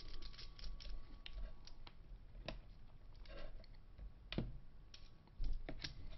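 Small accessories and packaging being handled: scattered light clicks and taps, with a few sharper knocks, more of them together near the end.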